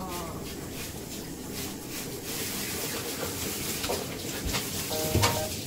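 Handheld shower head spraying water onto a wet Samoyed's thick coat in a bathtub: a steady hiss of spray with a few faint knocks.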